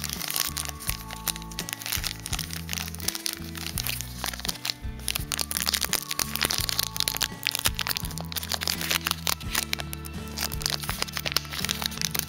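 Foil trading-card pack wrapper crackling and crinkling as it is handled and opened, over background music with held low notes.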